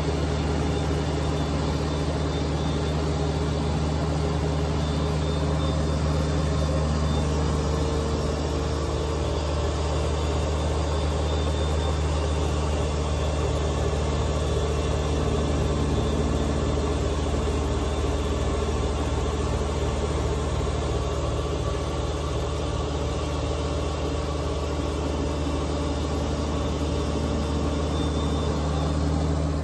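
Kubota BX2380 tractor's three-cylinder diesel running at a steady working speed, driving a front-mounted Kubota BX2816 snowblower that is throwing snow.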